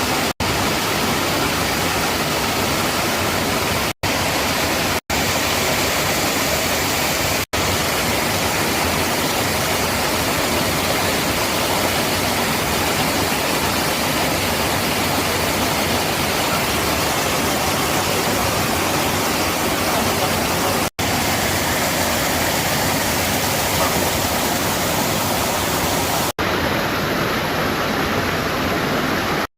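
Mountain stream water rushing steadily, an even loud noise broken by several brief cuts.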